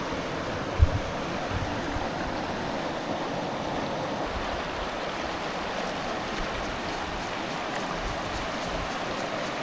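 Steady rushing of flowing water, with a single low thump a little under a second in.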